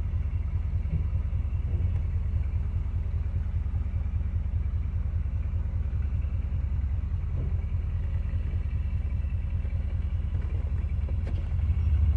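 Carbureted car engine idling in reverse gear at about 500 rpm, a steady low rumble as the car creeps backward on idle alone; the idle holds steady under the load. It gets a little louder near the end.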